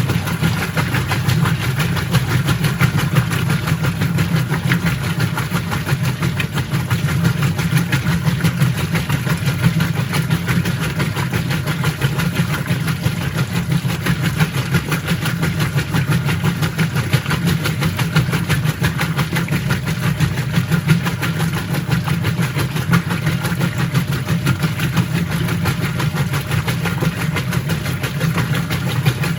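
Whirlpool top-load washing machine running steadily under its motor, a low hum with a broad whir over it, with no pauses or changes.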